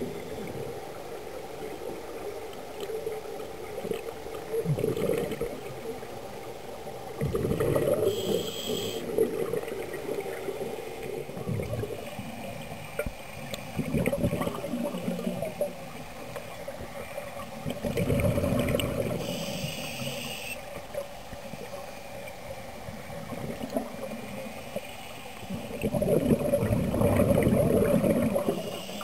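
Scuba diver breathing through an open-circuit regulator underwater: exhaled bubbles gurgle in rumbling surges every few seconds, the longest near the end, with a brief high whistly hiss of inhalation twice between them.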